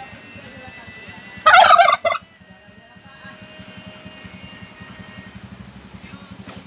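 A male domestic turkey gobbles once, a rapid warbling call about a second and a half in, over a low steady hum.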